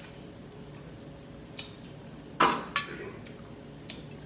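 Dishes clinking at a meal: two sharp clinks with a short ring about halfway through, among a few lighter ticks.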